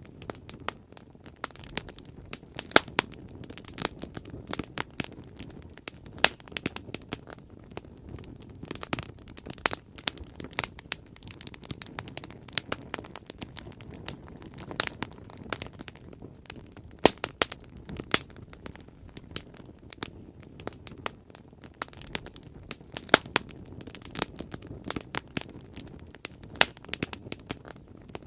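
A wood bonfire burning, crackling and popping at irregular moments over a steady low rush of flame.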